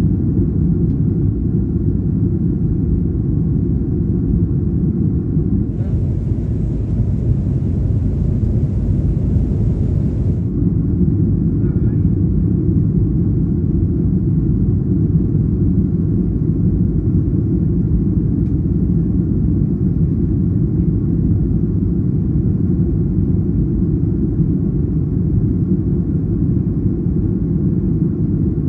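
Boeing 737-800 cabin noise in the climb: the steady low rumble of its CFM56 engines and the airflow, heard from a seat by the wing. A higher hiss is added for about four seconds near the start.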